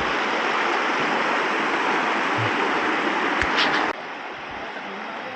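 Steady rush of waterfall water, dropping suddenly to a quieter rush about four seconds in.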